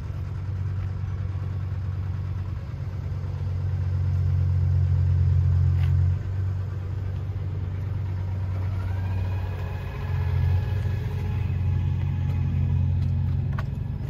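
A combine harvester's diesel engine idling steadily, a low hum that swells for a couple of seconds midway. A faint high whine joins in the second half.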